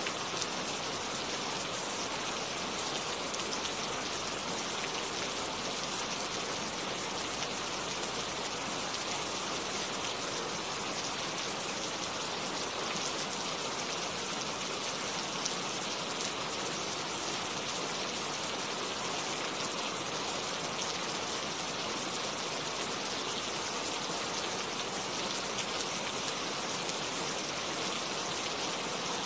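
Steady rain falling, an even hiss of many drops without thunder.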